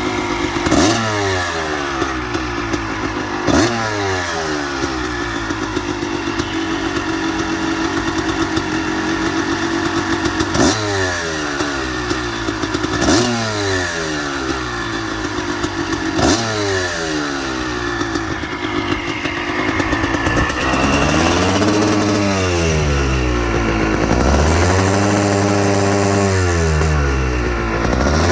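Kawasaki KX250 single-cylinder two-stroke engine warming up after a cold start, the throttle blipped every few seconds so the revs jump and fall back toward idle. Near the end the revs are held up longer, rising and falling twice.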